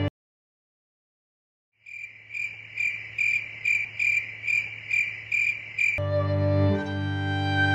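Silence for nearly two seconds, then a cricket-chirping sound effect: an even, pulsing chirp about two and a half times a second for about four seconds. Bowed-string music comes back in about six seconds in.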